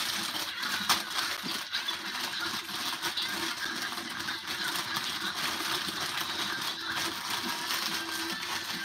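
Close rustling and crackling noise right at the microphone, with a sharp click about a second in.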